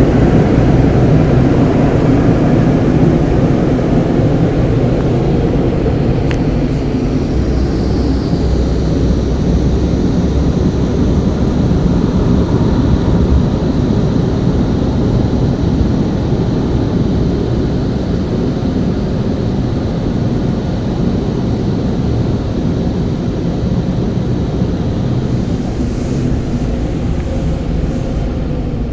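Automatic car wash machine running, a steady loud rush of machinery noise that eases off slowly toward the end.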